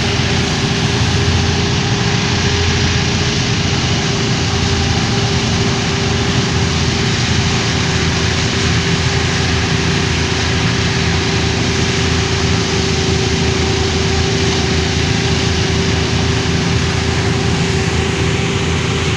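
Homemade engine-driven paddy thresher running steadily: a loud, even engine rumble with a constant hum over a rushing noise.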